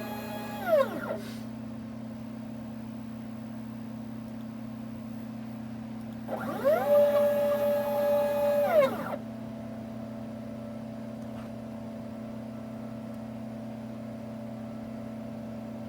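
Mini CNC machine's stepper motors whining as an axis moves: a short falling whine that stops about a second in, then around six seconds in a whine that rises in pitch, holds steady for about two seconds and drops away. A steady low electrical hum runs underneath.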